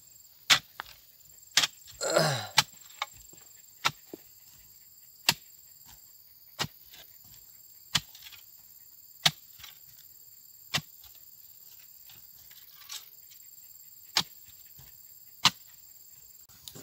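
A long-handled digging bar being driven into hard, stony earth in a pit, giving about a dozen sharp strikes spaced irregularly, roughly one every second or so. There is a brief grunt-like voice about two seconds in.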